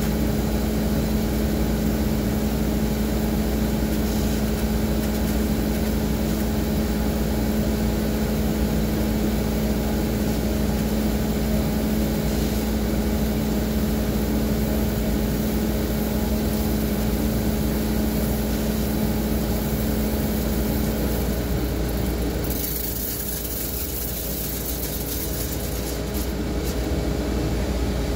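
Washing appliance running, with water jets spraying inside its tub and a steady motor hum. The hum drops out about 21 seconds in, and a brighter hiss of spray follows.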